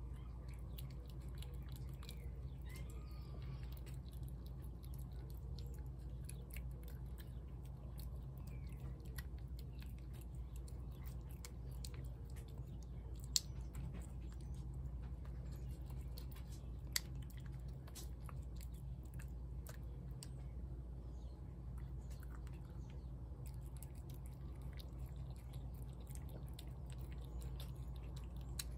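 Cat eating wet food from a plate: soft chewing with many small wet clicks, two of them sharper near the middle, over a steady low hum.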